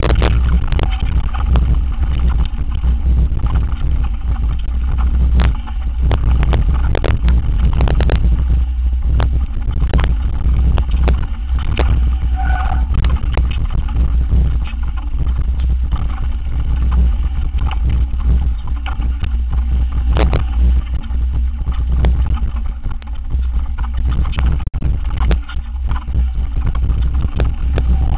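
Downhill mountain bike rattling and clattering over a rough dirt and rock trail, with frequent sharp knocks from bumps. Wind rumbles heavily over the microphone.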